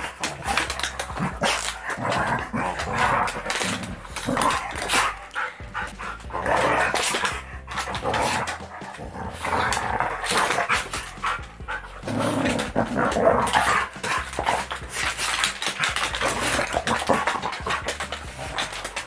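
Two dogs play-fighting: irregular barks and growls amid scuffling and clicks of bodies and paws.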